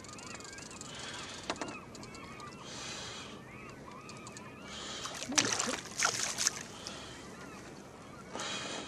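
Water sloshing and gear clattering in a small boat as a coho salmon is played to the side, with a louder burst of knocks and rattles about five to six seconds in. Birds call repeatedly in the background.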